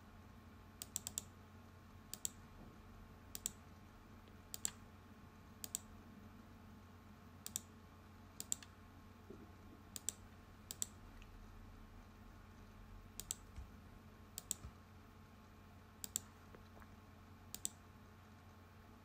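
Faint computer mouse clicks, about a dozen spaced roughly a second apart, many heard as a quick press-and-release pair, over a low steady hum.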